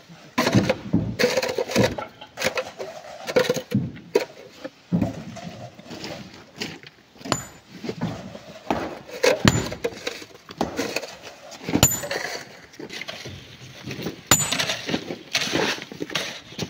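Irregular knocks and metallic clinks of tools striking and breaking rock, some sharp strikes ringing briefly.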